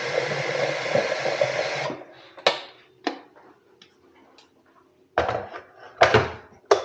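Tap water running into a kettle, shut off about two seconds in, followed by several sharp knocks and clunks as the kettle and kitchen things are handled.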